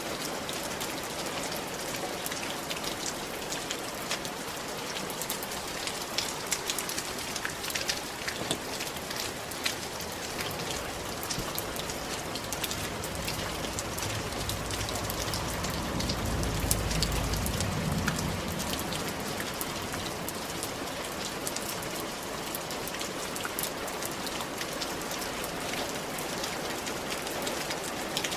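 Rain falling on a clay tile roof: a steady hiss with many individual drops tapping. A low rumble swells and fades about halfway through.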